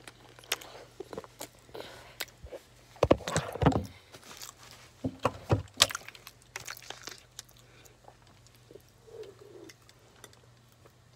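Handling noise from a phone being moved and set down: irregular knocks, clicks and rustles, with a cluster of louder knocks in the middle, then a brief low hum near the end.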